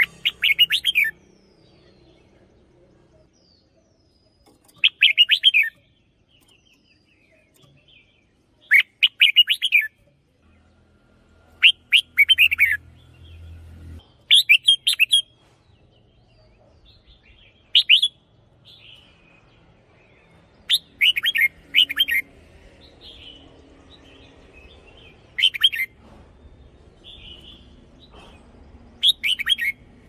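Red-whiskered bulbul singing: about nine short, bright warbled phrases, one every three to four seconds, with a few softer chirps between them.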